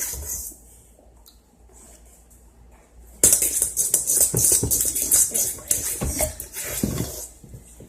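A utensil stirring slime mixture in a bowl, scraping and clinking against the sides in quick strokes; the stirring pauses briefly, then starts up again about three seconds in.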